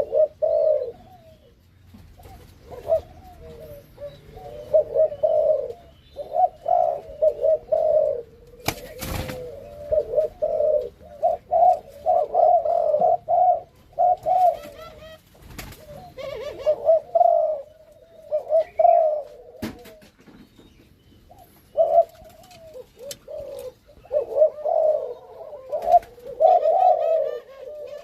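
Malaysian-strain spotted doves cooing over and over in phrases of several coos with short pauses between, the calls of a breeding pair just put together. A sharp click sounds about nine seconds in.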